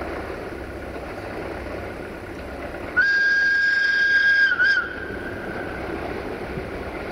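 Romanian 060-DA (LDE2100) diesel-electric locomotive sounding its whistle as it approaches: one high, steady blast of nearly two seconds about three seconds in, ending with a brief wavering dip. A low rumble from the approaching train runs underneath.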